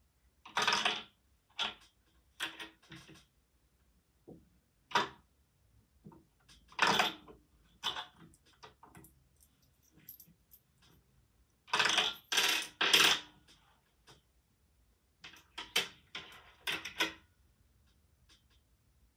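A coin dropped into a Lego-brick coin mechanism, clinking and rattling against the plastic parts in about eight short bursts of clatter. The loudest run comes about twelve seconds in.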